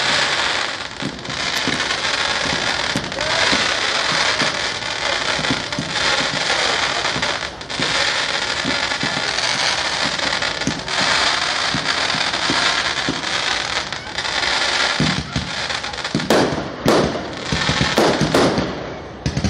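Fireworks display: a dense, continuous crackle of many small reports for most of the time, then several loud separate bangs in the last few seconds.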